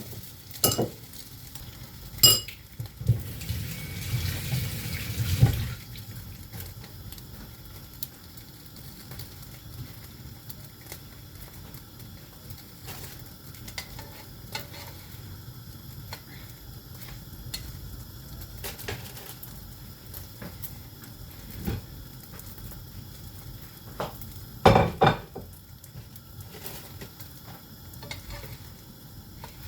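Kitchen utensils clinking against pans and dishes, with a few sharp knocks near the start, a short stretch of hissing noise a few seconds in, and another cluster of clinks near the end.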